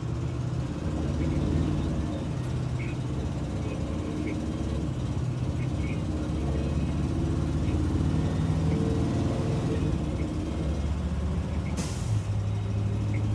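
Gasoline school bus engine running with a low, steady drone whose pitch shifts a little; the bus has an exhaust leak, which the owner puts down to a faulty catalytic converter. A short, sharp burst of noise near the end.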